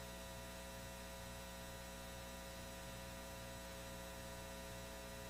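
Faint steady electrical mains hum with a stack of even overtones.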